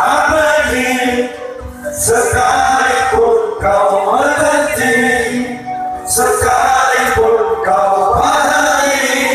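Live sholawat, an Islamic devotional song, amplified over a PA: a male voice sings long phrases over the band's drums, breaking briefly about two and six seconds in.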